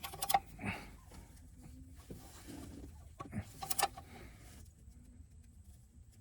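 A few short clicks and light metallic knocks from hand tools working on the oxygen sensor under the car: a cluster right at the start and another about three and a half seconds in.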